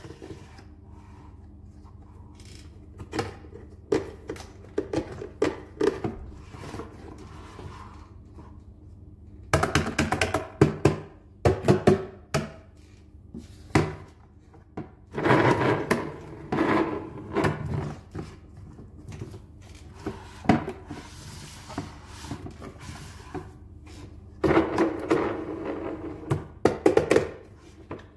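Large hollow plastic toy dump truck being handled, its dump bed worked up and down: scattered light taps, then from about ten seconds in three louder clusters of plastic clunks, clicks and rattles.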